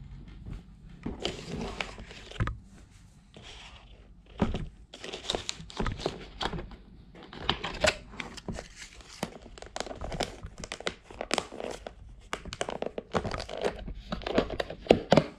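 A paper band being torn and pulled off clear plastic takeaway food containers, with a run of irregular crinkling and crackling from the thin plastic lids as they are handled.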